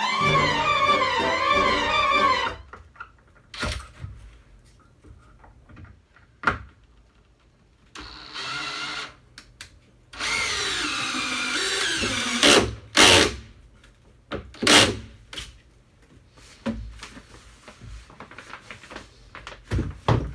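Clarinet-section music ends a couple of seconds in. Then a power drill drives deck screws into framing lumber in two runs, the longer one with the motor pitch sagging under load and recovering. Sharp knocks of wood and tools come in between and after.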